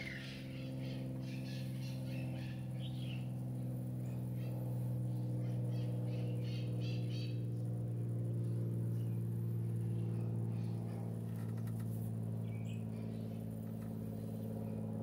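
JR S8477 digital servos humming steadily while holding the swashplate, with short high buzzes in the first few seconds and again around the middle as the follower servo twitches in one-degree steps to learn the master servo's position during automatic synchronization.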